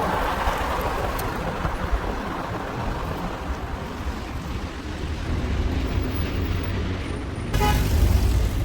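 Street traffic: cars passing with a steady low rumble of engine and tyre noise. About three-quarters of the way through, a vehicle passes close and louder, with a brief tooting tone.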